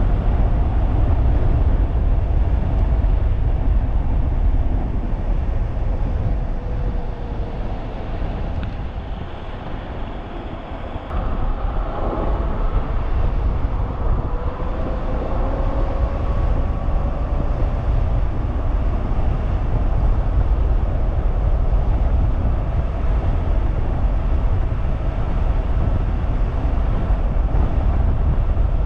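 Wind rushing over the microphone of a fast-moving 3000-watt e-bike, with the faint whine of its electric motor. The wind noise drops and the whine falls in pitch as the bike slows, about a third of the way in. Both rise again as it speeds back up.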